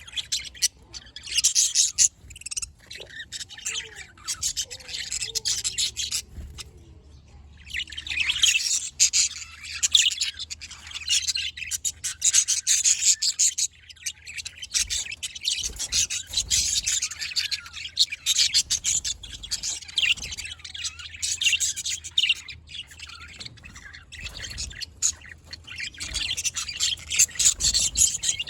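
Budgerigars chirping and chattering, a dense run of rapid high-pitched calls that comes in stretches of a few seconds with short pauses between them.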